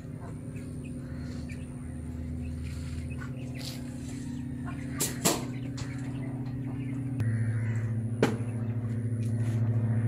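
A steady low mechanical hum with a few sharp clicks near the middle. The hum shifts in pitch about halfway through and grows louder about seven seconds in.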